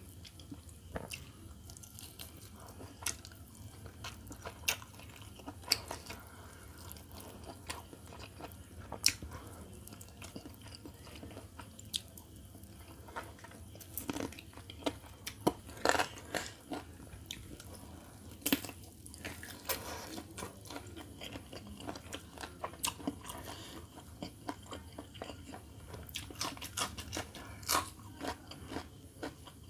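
Close-miked eating of a whole roast chicken: irregular wet chewing, the crackle of crisp skin and meat being torn and bitten, over a steady low hum. Near the end comes a crunch of biting into a raw green chilli.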